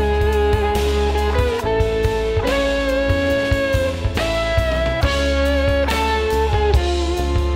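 A full band mix playing back: a held, singing lead melody that moves note to note with slight pitch glides, over a drum kit and bass. It is heard through the Tone Projects Unisum mastering compressor on the mix bus while the compressor's release time for the loud parts is being changed.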